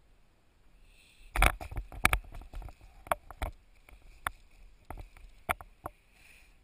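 Paraglider pilot touching down on a flat gravel-covered rooftop: a sharp thud of the landing about a second and a half in, then a run of irregular footsteps and knocks on the gravel over the next few seconds.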